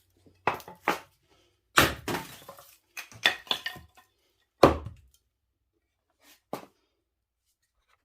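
A series of about ten sharp, irregular knocks and clunks of hard objects striking, the loudest about two seconds in and just before five seconds in.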